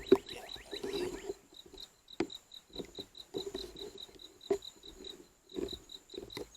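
A few sharp metallic clicks and knocks with some intermittent creaking from a truck-bed crane's hand winch and rigging as a mower deck is hoisted. Behind it, an insect chirps steadily about five times a second.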